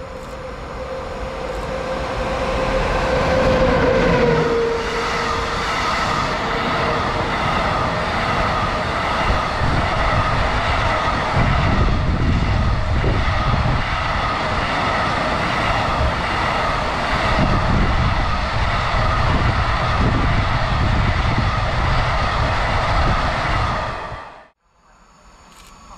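PKP ET22 electric freight locomotive and its train of wagons passing, building up over the first few seconds with a whine that drops in pitch about four seconds in, then a long, steady rolling rumble of wagon wheels on the rails. It cuts off abruptly near the end.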